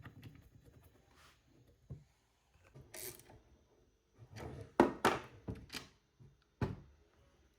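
Scattered clicks and knocks from hands handling parts, screws and tools while assembling 3D-printed machine parts. A cluster of several knocks comes a little past the middle, and a single sharper one follows near the end.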